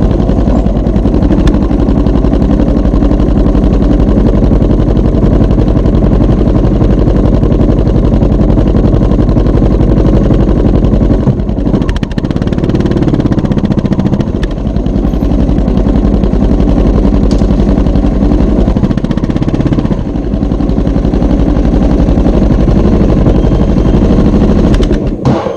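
Motorcycle engine running through a Yoshimura TRI-OVAL aftermarket exhaust, a loud, rapidly pulsing exhaust note; the revs drop off and pick up again about halfway through and once more later, and the sound stops abruptly near the end.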